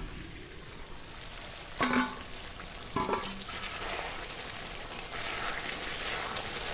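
Goose meat sizzling in oil in a kadai at the kosha stage, being dry-fried with spices before any water goes in, as a metal spatula stirs it. A ringing metal clink of the spatula against the pan comes about two seconds in and again about three seconds in.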